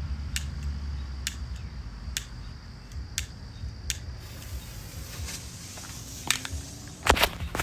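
A lighter clicking about once a second while the Roman candle fuse is being lit, then the fuse hissing from about four seconds in, and sharp cracks near the end as the Roman candle starts to fire.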